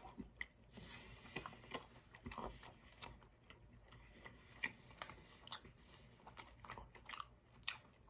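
A person biting into and chewing a soft biscuit-wrapped sausage, egg and cheese breakfast roll-up: one bite, then quiet chewing with many small clicking mouth sounds.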